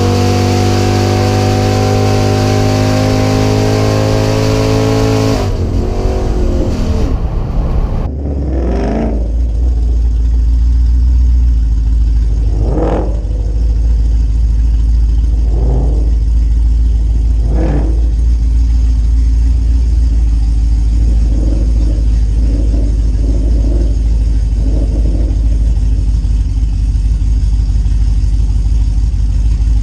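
Drag-racing V8 engine at high revs under full throttle during a pass, heard from on board, backing off about five seconds in and slowing. After a cut, a V8 pickup's engine idles with a deep rumble and is blipped sharply four times, with a few smaller throttle blips after.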